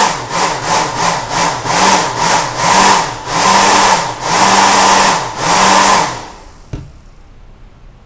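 Hair dryer's blower motor and fan running in short bursts as its speed-switch terminals are bridged by hand. The motor's whine rises and falls about ten times over a rush of air, then cuts off about six seconds in, followed by a single sharp click. The bridge is a test of whether the dryer runs on low speed with the faulty switch bypassed.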